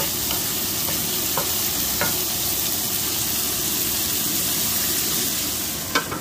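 Cut green beans sizzling in hot oil in a wok, stirred with a wooden spatula that taps the pan now and then. A sharper clack comes near the end.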